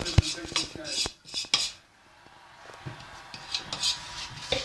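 Kitchen utensils and dishes clattering: a quick run of clinks and knocks in the first second and a half, then quieter, with a few more clinks near the end.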